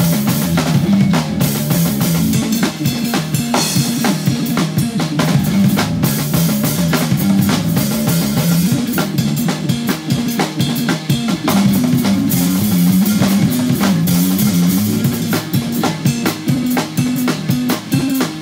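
Electric bass guitar and drum kit playing fast, heavy instrumental metal together, dense drum hits under a bass line that keeps changing notes.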